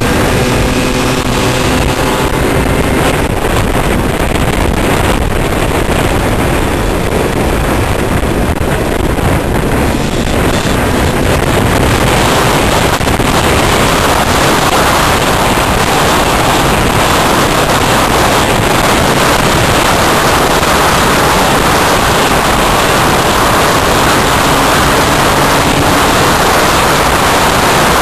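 Steady, loud wind rush on the microphone at road speed over small two-wheeler engines running. An engine's pitched hum shows through for the first couple of seconds, then the wind noise covers it.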